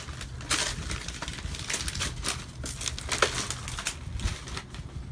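Wrapping paper crinkling and rustling in irregular bursts as a present is unwrapped by hand and the box inside is pulled out.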